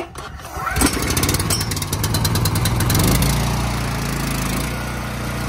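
Honda single-cylinder gas engine of a Pressure-Pro Eagle II pressure washer being pull-started: a sharp yank on the recoil starter, then the engine catches a little under a second in and runs fast and loud, settling into a steadier run after about three seconds.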